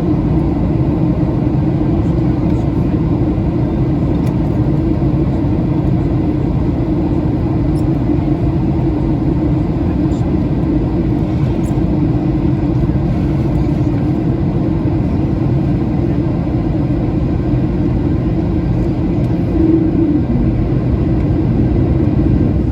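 Steady cabin drone of a Boeing 737-800 in flight: the noise of its CFM56 engines and the air rushing past the fuselage, with a slight swell about twenty seconds in.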